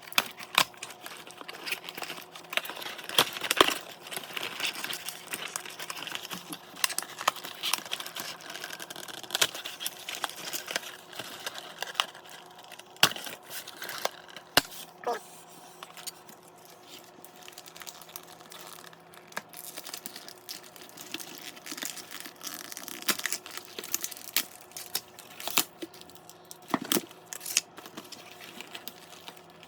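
Toy box packaging being handled and opened: irregular crinkling, tearing and sharp clicks, over a faint steady hum.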